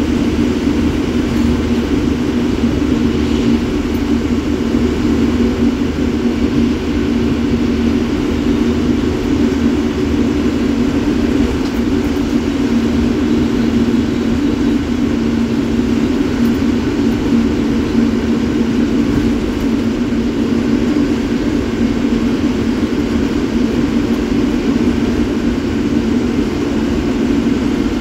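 A BS3 diesel bus cruising at steady highway speed, heard from inside its cab: a loud, unbroken engine drone with road and wind noise.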